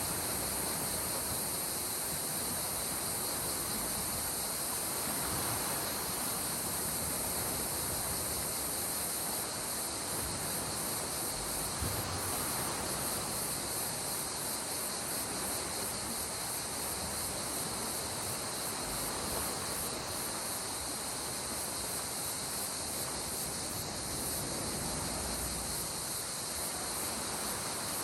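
A steady, high-pitched chorus of insects over the continuous wash of sea water on the shore.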